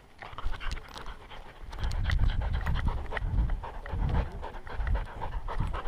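Welsh Springer Spaniel puppy panting close to a collar-mounted camera, the breaths getting stronger about two seconds in, with scattered light clicks.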